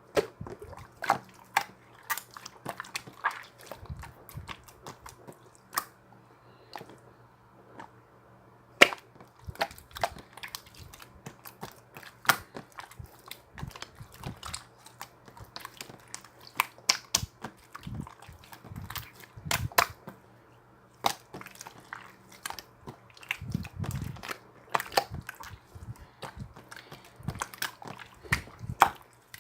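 Slime being squeezed and poked by hand: an irregular run of sharp clicks and pops, with a few louder snaps and denser bursts of crackling.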